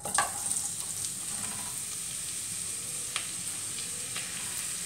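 Sliced onions dropped into hot coconut oil in a kadai, sizzling loudly as they hit and settling into a steady frying hiss with a few sharp pops.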